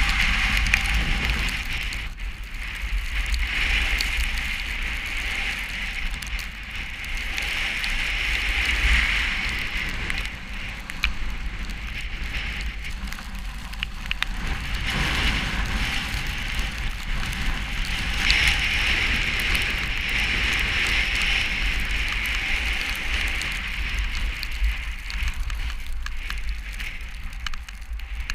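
Snowstorm wind blowing and buffeting the microphone: a low rumble under a hiss that swells and fades every few seconds.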